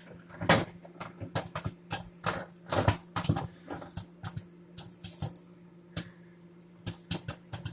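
Microwave's glass turntable plate clinking and knocking against its roller wheels and the oven floor as it is handled and reseated, in many irregular clicks and clatters over a steady low hum. The plate keeps slipping off the little wheels.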